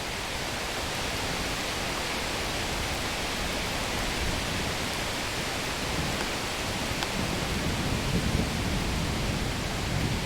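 Steady hiss of heavy rain in a thunderstorm, with a low rumble of thunder coming up over the last few seconds.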